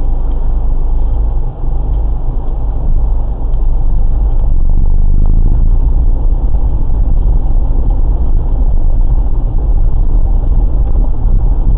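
Car interior driving noise picked up by a dashboard camera: a steady low rumble of engine and tyres on the road, growing somewhat louder about three seconds in.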